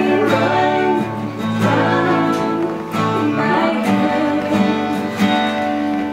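Live acoustic guitar playing with a voice singing along.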